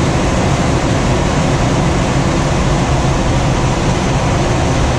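Steady rush of airflow around a glider's cockpit in flight, loud and even throughout.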